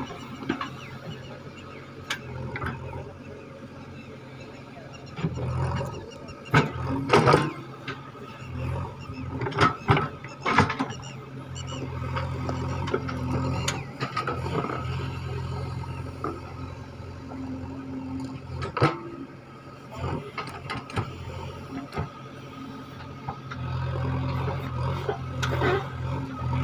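JCB 3DX backhoe loader's diesel engine running steadily under digging load, swelling at times. Sharp clanks and knocks come through, a cluster of them in the middle and a few more later.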